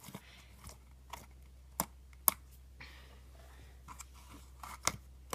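Slime being squished and poked by hand, giving a few sharp, separate clicking pops over a faint background hum.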